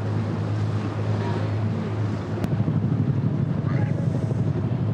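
River taxi boat's engine running steadily with a low hum, with water and wind rushing over the microphone at the bow. A single sharp click about two and a half seconds in.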